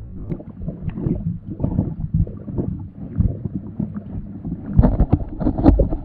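Underwater sound from a submerged camera: water churning and gurgling with a low rumble and irregular clicks and pops, getting louder near the end.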